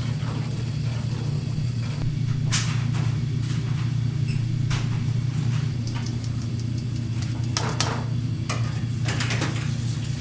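A steady low hum with scattered sharp clicks and knocks, several of them close together near the end.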